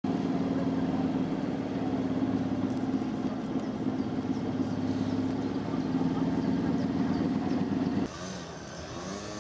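An engine idling steadily, a low even hum that stops abruptly about eight seconds in.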